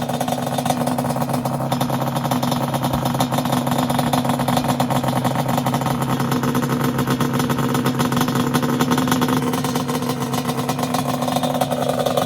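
Yamaha Banshee ATV's twin-cylinder two-stroke engine running steadily at an even pitch, its rapid firing heard throughout.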